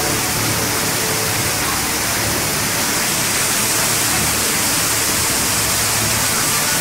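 Waterfall in full spate, swollen and muddy with rainwater, pouring over rock as a loud, steady rush of water.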